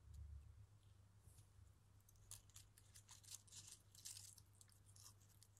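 Faint rustling and crackling of leafy twigs being pressed and arranged by hand on a painted gel printing plate, mostly a run of short crackles in the middle and latter part.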